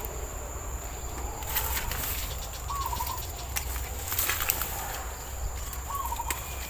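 Ivy gourd vines and leaves rustling and crackling as they are pulled and picked by hand. A bird gives a short call twice, about three seconds apart, over a steady thin high whine.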